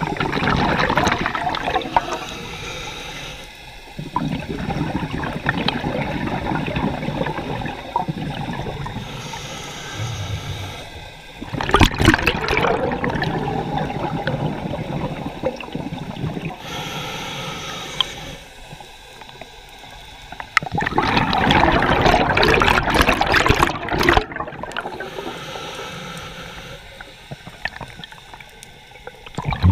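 Scuba regulator breathing underwater: a hissing inhale, then a loud gurgling rush of exhaled bubbles, in a slow cycle of about ten seconds.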